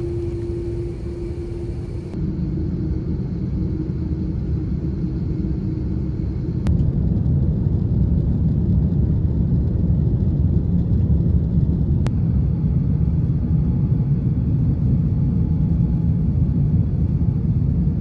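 Steady low rumble of a moving vehicle, growing louder about two seconds in and again about seven seconds in.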